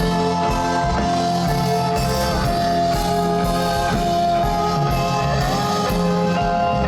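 Live band playing an instrumental passage without vocals: electric guitar with sustained, sliding notes over a steady bass line.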